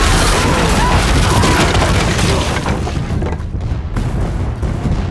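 Broadside of ship's cannons firing in a barrage, heavy booms running together and easing off in the last couple of seconds, with a film score underneath.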